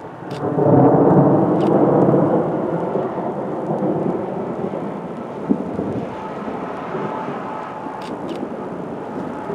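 Thunder rumbling: it rises sharply about half a second in, is loudest around one to two seconds, then slowly rolls off.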